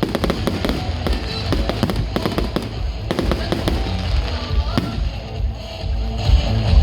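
Fireworks going off: a rapid run of crackling reports and bangs over a deep rumble, densest in the first half and thinning toward the end, with music playing alongside.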